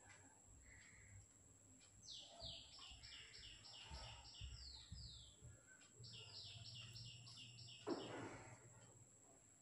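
A small bird chirping faintly in two quick runs of repeated, falling notes, over a low steady hum, with a brief swish near the end.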